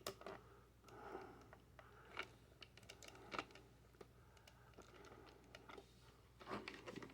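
Near silence with a few faint clicks and taps of a plastic action-figure toy being handled.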